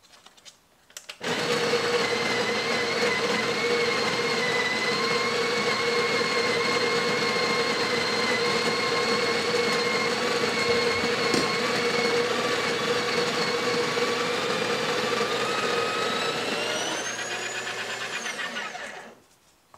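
Breville Barista Express's water pump running, pushing water through the empty group head into a cup: a steady, loud mechanical hum that starts about a second in, rises in pitch near the end, then stops.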